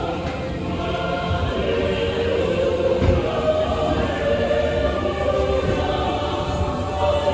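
Choral music from the ride's soundtrack: a choir holding long, slowly shifting notes.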